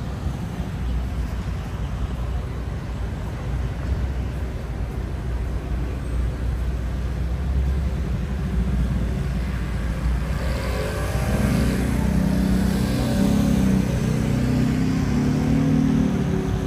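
City street traffic: motor vehicles passing with a steady low engine rumble. The rumble grows louder and takes on a pitched drone about eleven seconds in, as a vehicle comes close.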